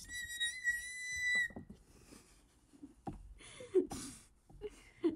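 A person's excited, high-pitched squeal, held for about a second and a half, then breathy gasps and short squeaky vocal noises.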